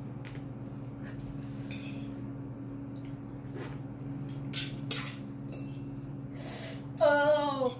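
A fork clinking and scraping on a ceramic plate with short slurping eating sounds, over a steady low hum. Near the end comes a loud, short vocal whimper that falls in pitch, a reaction to the very spicy noodles.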